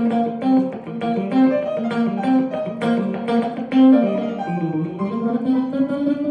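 Guitar playing a slow picked melody of single plucked notes, about two a second, with a low note that slides down and back up again near the end.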